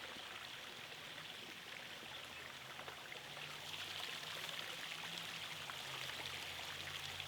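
Faint steady hiss with a low hum: room tone.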